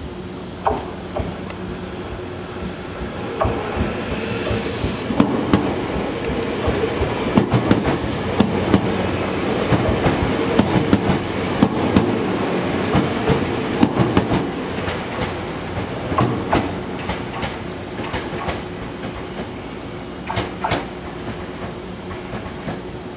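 Tobu 500 series Revaty electric train pulling out of the station past the platform, its wheels clacking over rail joints and points. The clatter builds over the first few seconds, is loudest in the middle as the cars go by, and thins out as the train draws away, with a few last clacks near the end.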